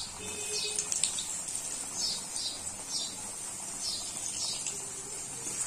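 Chunks of potato frying in hot oil in an aluminium kadai, a steady sizzle with small crackles. A bird chirps about twice a second in the background.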